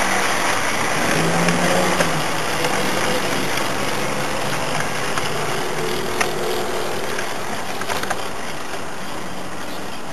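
Model diesel Pullman train running along garden railway track: a steady mechanical running noise, with a few light clicks scattered through it.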